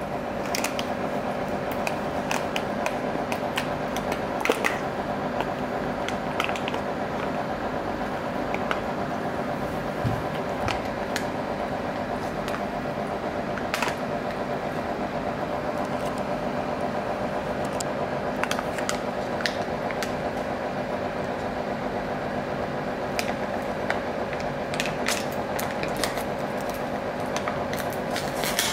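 Steady machine hum with several even tones, dotted with scattered light clicks and taps.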